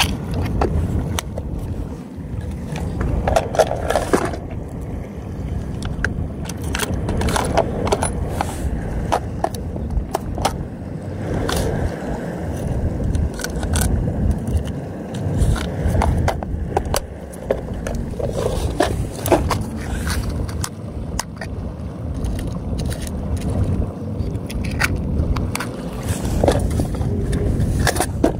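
Handling noise from a body-worn camera: cloth rubbing and scraping over the microphone, with irregular knocks and clicks over a constant low rumble.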